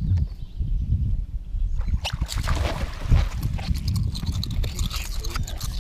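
Water splashing as a bass thrashes and is scooped up in a landing net and lifted out of the lake, starting about two seconds in with a burst of splashes and then sharper dripping and flapping sounds. A steady low rumble runs underneath.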